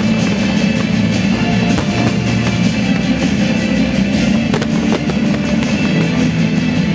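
Loud music over fireworks shells bursting and crackling, with sharper bangs standing out about two seconds and four and a half seconds in.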